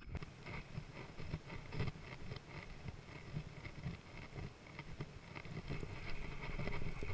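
Faint handling noise of a fishing rod and reel during a cast, light scratches and ticks, over wind on the microphone and a faint steady high hum.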